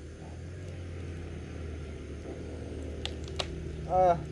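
A road vehicle's engine rumbling steadily, with a short, loud horn toot near the end.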